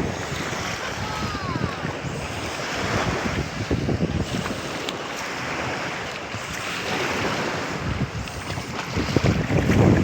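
Sea waves washing on the shore in uneven swells, with wind buffeting the microphone.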